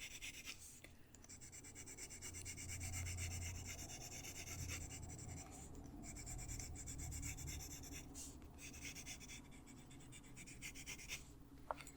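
Colored pencil rubbing on the paper of a colouring book, faint, in quick short back-and-forth strokes as color is shaded in.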